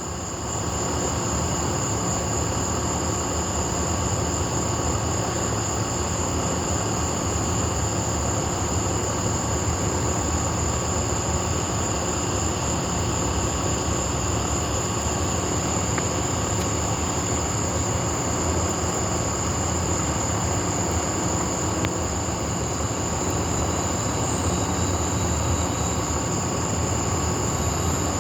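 Steady night ambience with no thunder: a constant high-pitched insect chorus over an even low rumble.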